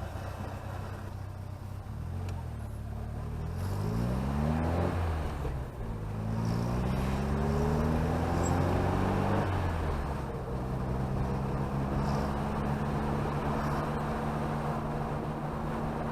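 Chevrolet Chevette's engine pulling the car up through the gears: its pitch rises, drops at a gear change about five seconds in, rises again and drops at another change near ten seconds, then holds steady at cruising speed over road noise.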